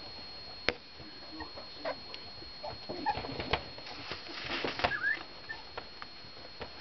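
Young puppies giving short, high squeaks and whimpers now and then, with a couple of sharp clicks as they move about.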